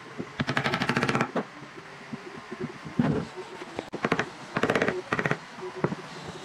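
Wooden mallet striking a wood chisel's handle, cutting into the chair's wooden frame: two quick runs of sharp knocks, each about a second long, with single knocks between.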